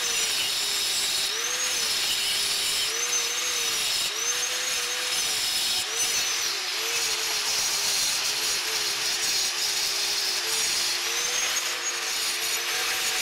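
Angle grinder running under load and cutting into a fire brick, with a hissing grind. Its motor whine dips and recovers again and again as the disc bites into the brick.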